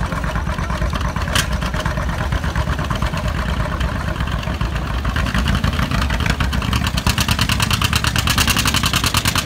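Vintage John Deere two-cylinder tractor engine working under load while pulling a weight-transfer sled, with an even exhaust beat that grows louder and more distinct about seven seconds in.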